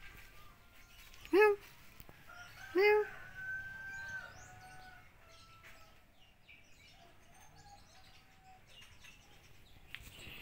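An animal calling twice, two short loud calls about a second and a half apart, the second trailing into a fainter held note, with faint chirping in the background.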